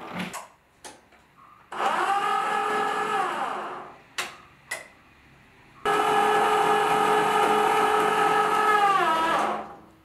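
Electric motor of a homemade battery-powered mini auto-rickshaw running twice, a short run and then a longer one of a few seconds. Each run starts suddenly at a steady whining pitch and falls in pitch as the motor winds down. A couple of short clicks come between the runs.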